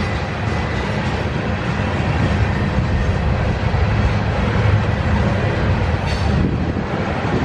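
Freight train's tank cars and covered hoppers rolling past, a steady rumble of steel wheels on rail.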